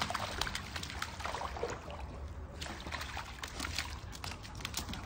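A puppy's paws splashing in shallow water on a pool step, with trickling water and many small sharp splashes.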